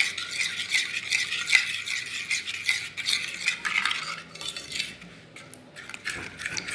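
A utensil stirring and scraping through a wet, sticky slime mixture in a bowl, in quick repeated strokes about three a second that thin out and quieten near the end. The glue-based slime is being worked with liquid laundry soap as activator and has not yet thickened.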